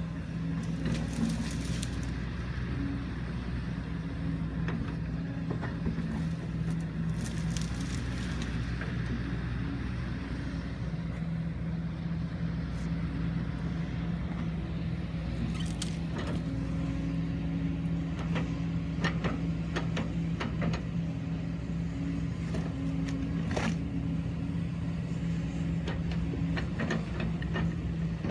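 Kobelco SK140-8 excavator's diesel engine running steadily under work, with scattered sharp cracks and knocks, more frequent in the second half.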